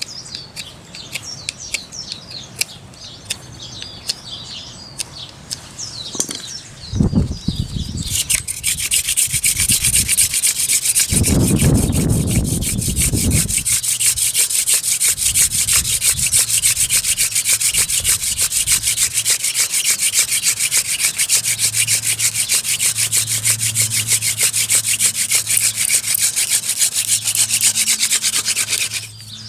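Hand drill fire-starting: a wooden spindle twisted rapidly back and forth between the palms in a hearth-board hole, giving a fast, continuous rasping of wood on wood as friction is built up to make an ember. The rasping starts about eight seconds in, with birds chirping before it, and breaks off briefly just before the end.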